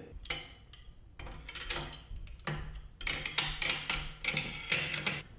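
Irregular metallic clicks and clacks of Romanian PSL rifle parts being handled and fitted together during reassembly.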